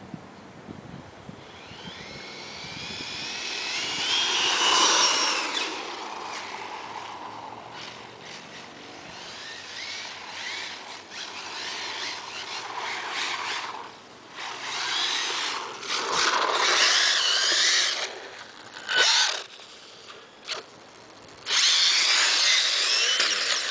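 Brushless-converted RC buggy with a Neu 2650kv motor on a Mamba Monster Max ESC, whining as it is throttled hard while drifting on asphalt. Its pitch rises and falls, and in the second half it comes in short full-throttle bursts that cut off suddenly.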